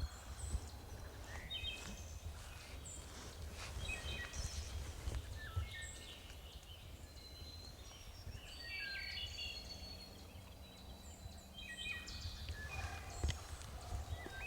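Woodland songbirds chirping and whistling in many short phrases, over a steady low rumble.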